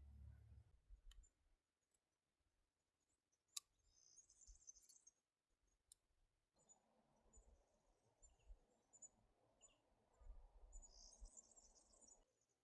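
Near silence with faint high bird chirps twice, about four seconds in and again near the end, and a few faint clicks.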